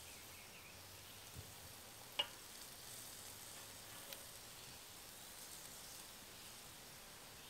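Burgers and brats sizzling faintly over hot coals on a charcoal kettle grill, with a single sharp click about two seconds in.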